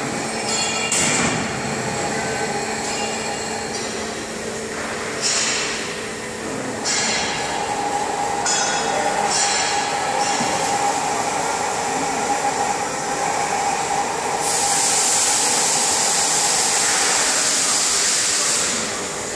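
Hydraulic scissor lift operating: a steady whine from its power unit, with intermittent high metallic squeals and a loud hiss for about four seconds near the end.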